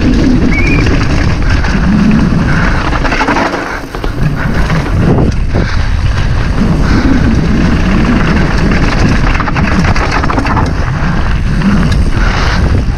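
Wind buffeting the camera microphone while a downhill mountain bike's tyres and frame rattle over rough trail at speed. The noise dips briefly about four seconds in.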